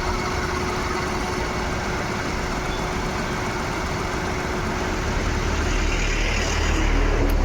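Maruti Suzuki Wagon R K-series three-cylinder petrol/CNG engine idling with the AC on as it changes over from petrol to CNG, its low rumble swelling after about five seconds. On CNG it begins to miss: a misfire that shows on CNG only, not on petrol. A thin steady whine stops about six seconds in.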